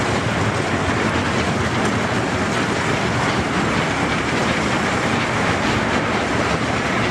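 Kiddie-ride train running around its small circular steel rail track: a steady noise of wheels on the rails.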